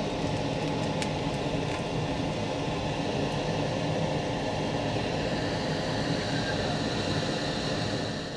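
Steady sizzling hiss of hot oil in a frying pan on a gas stove, with a few small pops.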